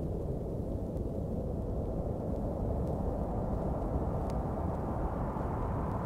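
Steady low rumbling noise used as a sound effect on a vinyl rock record, its top edge slowly brightening towards the end. A faint click comes about four seconds in.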